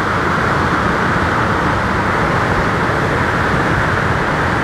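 Steady rushing noise of breaking ocean surf.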